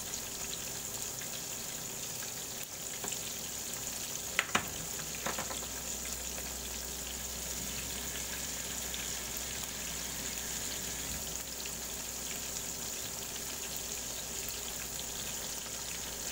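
Battered chicken strips frying in hot oil in a pan, a steady high sizzle. A couple of sharp clicks stand out about four and a half seconds in.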